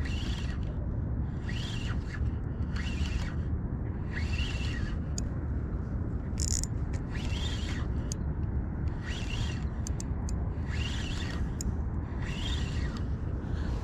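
Shimano Stella 4000XG spinning reel working against a hooked fish: a zipping whir in short bursts about once a second, over a steady low rumble.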